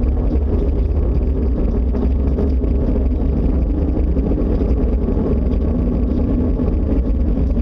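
Loud, steady low rumbling drone with faint held tones above it, the kind of noise reported as a mysterious 'strange sound in the sky'.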